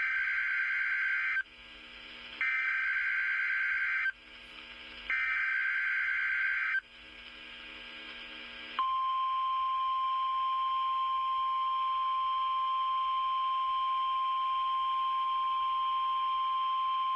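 NOAA Weather Radio Emergency Alert System alert. It opens with three SAME digital header bursts, each about a second and a half of rapid data screech with a short gap between them. About nine seconds in, the single steady weather radio alert tone begins and holds. Together they signal an incoming tornado watch.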